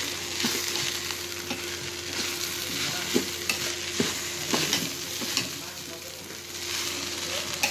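Rice and lentils frying in spiced oil in a pot, a steady sizzle, while a spoon stirs and scrapes the pot every second or so to roast the rice.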